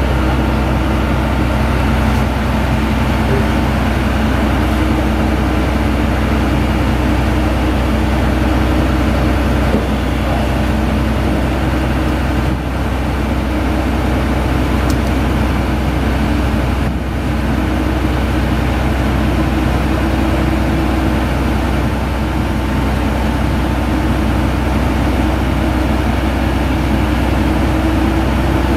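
Truck diesel engine running steadily, driving the hydraulics that open the Vactor 2100 sewer cleaner's rear door and tilt its debris tank up to dump.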